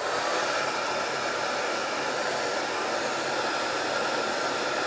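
Handheld BaByliss hair dryer running steadily: a constant rush of air with a faint steady whine.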